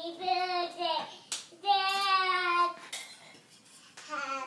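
Toddler girl singing in a high voice, holding long steady notes, with two sharp hand claps between the notes.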